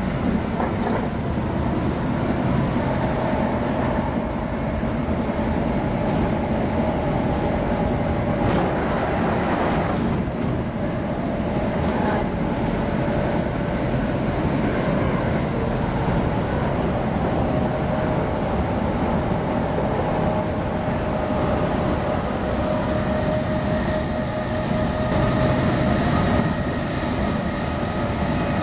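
Class 317 electric multiple unit running at speed, heard from inside the passenger saloon: a steady rumble of wheels on rail with a faint steady whine over it, and a couple of brief knocks about a third of the way through.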